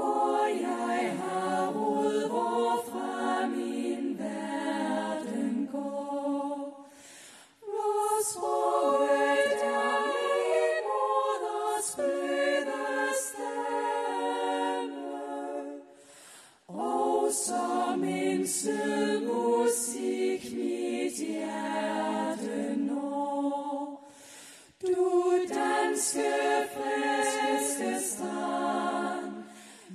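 Women's choir singing a cappella through handheld microphones, in sung phrases of several seconds each with short breaks between them.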